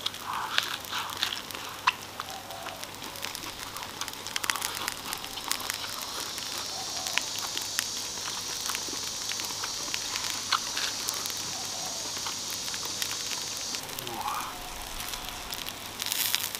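Slices of beef tongue sizzling on a hot round grill plate, with scattered sharp crackles as the fat renders out, and a steadier hiss from about six to fourteen seconds in. A louder rustling burst comes near the end.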